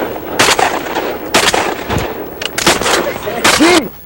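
Duck hunters' shotguns firing repeatedly: five or six blasts in quick, uneven succession, each trailing off in a short echo. Near the end comes a brief rising-and-falling call.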